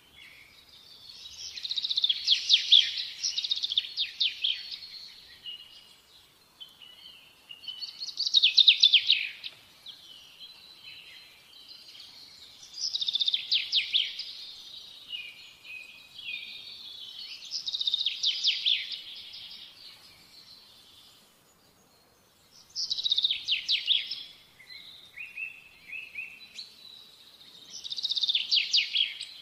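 Birdsong: rapid trilled phrases, each a second or two long, repeated about every five seconds.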